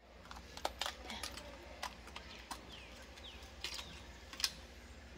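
Scattered small mechanical clicks and clacks from a Canon AE-1 35mm film camera being handled at its top controls and its film back opened.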